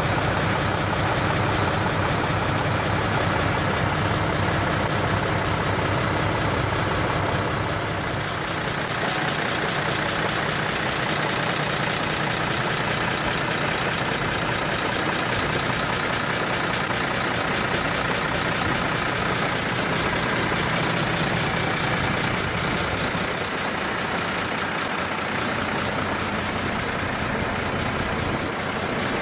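Decorated heavy truck's diesel engine idling steadily through a split-manifold (mani-wari) exhaust. A faint high ticking runs over the first eight seconds, and the engine sound shifts slightly about eight seconds in.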